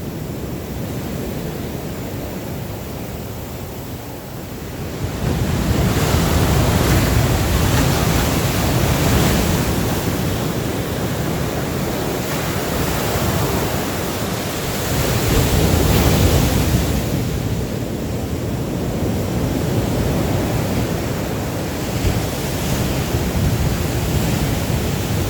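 Surf breaking on the beach, a steady rush of waves that swells louder about five seconds in and again past the middle, with wind buffeting the microphone.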